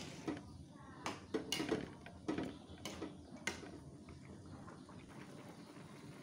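A spatula knocking and scraping against a wok while soup is stirred: a string of sharp knocks over the first three and a half seconds, then quieter.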